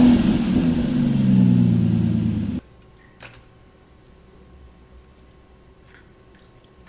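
Engine-revving sound effect of a toy sports car: a rev that climbs, holds and sinks slightly, then cuts off abruptly about two and a half seconds in. A few faint clicks follow.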